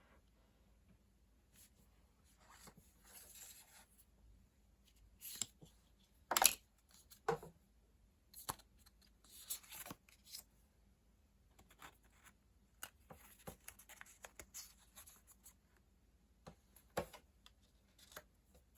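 Handling of an iPhone 11 and its packaging: scattered light taps and clicks with a few short stretches of paper or plastic rustling, the loudest knock about six seconds in.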